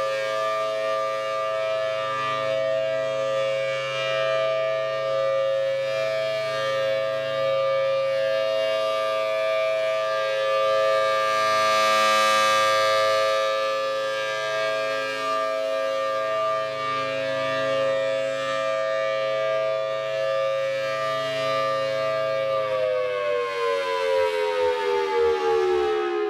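Federal Signal Thunderbolt 1000T outdoor warning siren sounding its steady alert, a two-note chord, swelling louder about halfway through. About 23 seconds in, the pitch starts falling as the 3-minute alert ends and the siren winds down.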